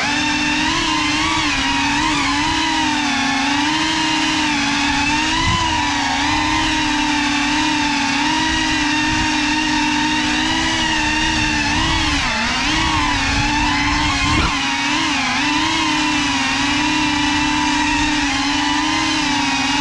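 Motors of a Cinelog 35 cinewhoop FPV drone whining in flight, several pitches rising and falling together as the throttle changes, heard through the GoPro mounted on the drone. One short knock about three-quarters of the way through.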